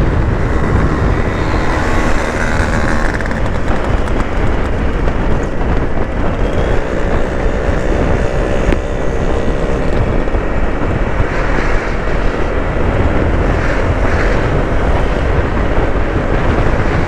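Wind rushing over the rider's microphone and a Honda Vario 160 scooter running steadily at riding speed, with road noise.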